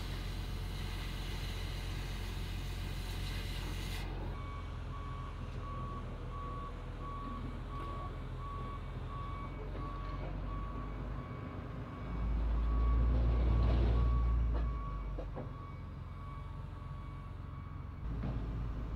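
A cutting torch hisses steadily for about four seconds. Then a Case 621C wheel loader's diesel engine runs with its reversing alarm beeping at an even pace, about two beeps a second, and the engine revs up to its loudest for a couple of seconds past the middle.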